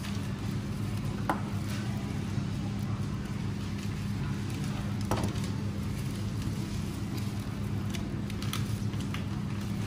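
A steady low machine hum, with a few faint knocks and taps as a knife cuts through a salmon fillet onto a plastic cutting board.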